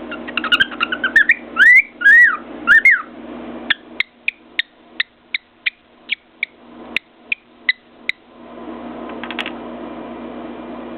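Cockatiel whistling a string of notes that glide up and down, then a run of short, sharp chirps about three a second.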